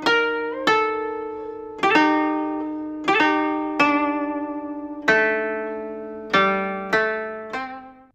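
Credits music: a slow melody of single plucked string notes, each struck sharply and left to ring and fade, with one note bent upward.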